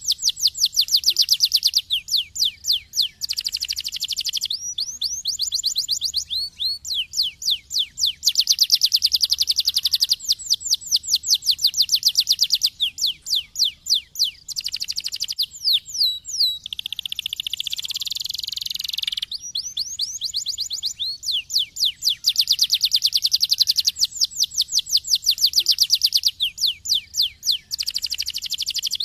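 Domestic canary singing continuously: fast trills of repeated sweeping notes that change speed every second or two, with a harsher warbled phrase about two-thirds of the way through.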